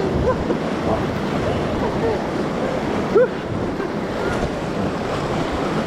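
River whitewater rushing steadily around a raft, with small gurgles and splashes, and a sharper splash about three seconds in.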